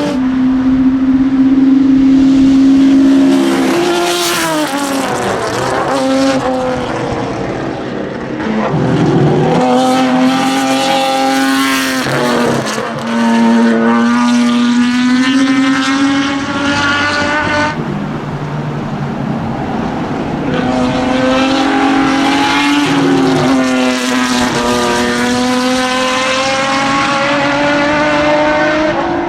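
Ford Capri RS 3100 race car's V6 engine running hard at high revs, its pitch climbing through the gears and dropping back several times on lifts and downshifts.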